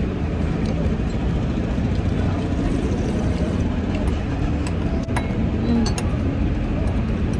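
Steady rumble of road traffic, with faint background voices and a couple of light clinks about five and six seconds in.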